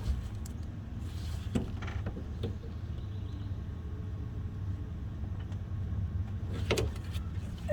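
A few short clicks and knocks as a rubber heater hose is worked onto its fitting with a spring squeeze clamp, over a steady low rumble.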